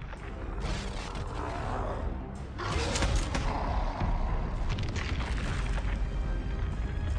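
Film soundtrack of deep booming and rumbling with sudden crashing hits, the loudest about three seconds in, over an orchestral score.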